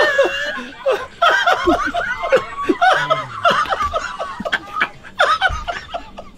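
Two men laughing hard: a fast run of short, high laughing bursts and gasps, each dropping in pitch, dying down toward the end.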